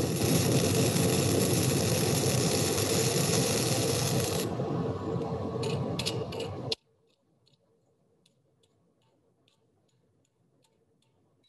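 Self-shielded flux-cored arc welding with .035 in. Innershield NR-211-MP wire: a loud, dense arc crackle that changes about four and a half seconds in and stops abruptly about seven seconds in, followed by faint scattered ticks. The welding sounds a little different because the contact-tip-to-work distance is too long: the wire hunts back and forth and feeds inconsistently.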